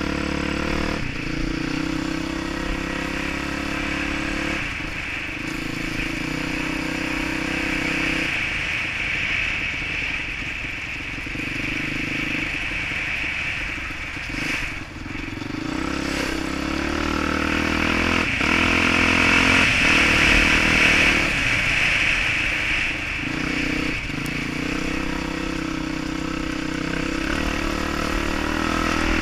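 Dirt bike engine under the rider, revving up and dropping back again and again as the throttle and gears change on a dirt trail. There is a steady rushing noise of wind and ground throughout.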